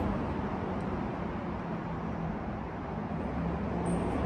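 Steady ambient rumble and hiss of a parking garage with a faint low hum throughout, and a short high-pitched tone about four seconds in.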